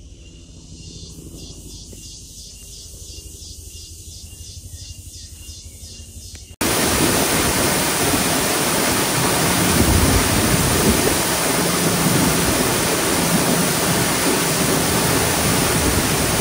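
A tall waterfall's steady rush of falling water plunging into a pool. It starts abruptly about six and a half seconds in, after a much quieter stretch.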